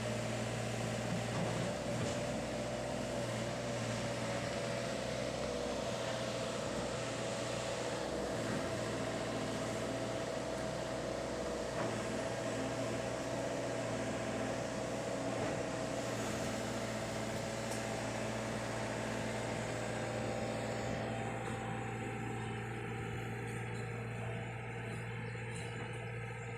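Excavator engine running at a steady, even hum with no revving. In the last few seconds the hiss thins out, leaving steadier tones.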